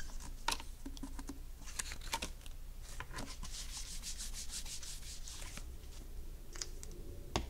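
Felt-tip marker scratching briefly on a whiteboard. Then an eraser rubs back and forth across the board in quick, even strokes, wiping the writing off. A single short knock comes near the end.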